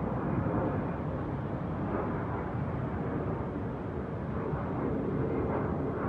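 Steady low rumble of distant city ambience heard from high up, with no distinct events standing out.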